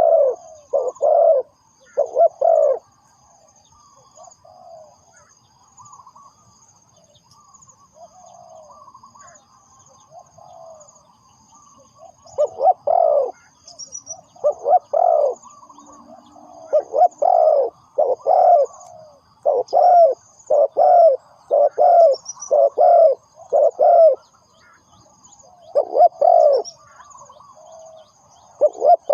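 Spotted dove cooing in repeated phrases of short, low notes. There is a pause of about nine seconds, after which the phrases come thick and fast. A faint, high-pitched chirping runs underneath throughout.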